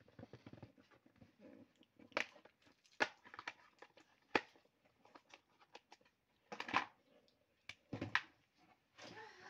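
Clear plastic marker case being handled and opened: scattered sharp plastic clicks and taps, with markers knocking inside and a few short rustling scrapes.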